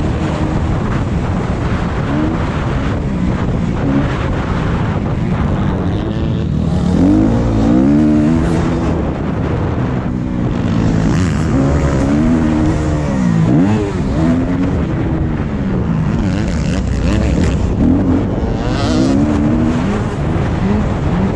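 Motocross bike engine running hard, its pitch climbing and dropping again and again as the throttle is opened and closed.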